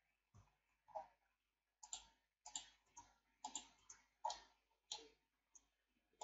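Faint, irregular clicks of a computer mouse and keyboard, about a dozen in all, with near silence between them.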